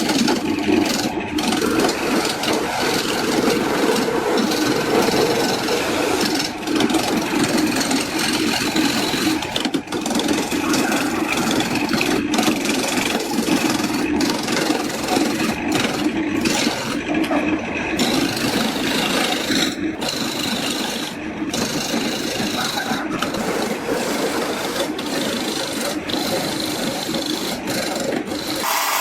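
A tool scraping and rubbing on wood in continuous strokes, with a few brief pauses.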